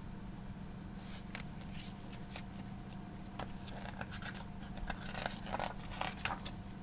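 Pages of a hardcover picture book being turned and handled: a run of irregular soft paper rustles and crinkles, starting about a second in.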